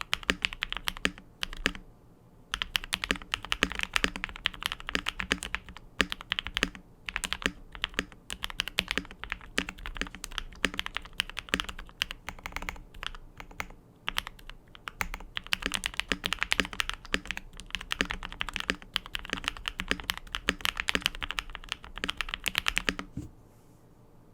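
Fast continuous typing on a KBDfans D65 polycarbonate gasket-mount mechanical keyboard with lubed Durock POM linear switches, PE foam mod and JTK Vostok keycaps: a dense run of poppy keystrokes with brief pauses. The typing stops about a second before the end.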